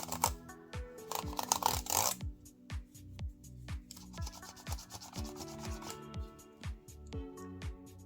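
A cloth rubbing and scrubbing across the keys of an Apple iMac keyboard for about the first two seconds, over background music with a steady drum beat.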